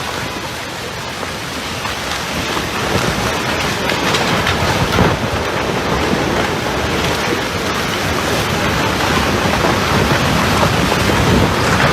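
Heavy rushing water: a dense, steady noise with no break, growing a little louder a few seconds in.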